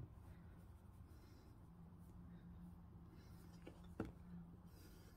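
Faint scratching of a pen writing on a stiff card over quiet room tone, with one sharp click about four seconds in.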